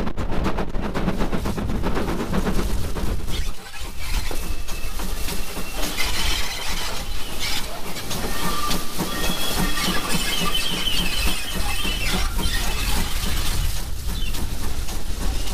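A heritage railway train running on the line, with wheels clattering over the rails and a high squeal from the wheels or brakes from about six to thirteen seconds in, over a steady rumble and hiss.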